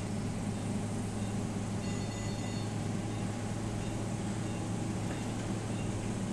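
Steady low hum and rumble of operating-room machinery, with a few faint high electronic tones about two seconds in.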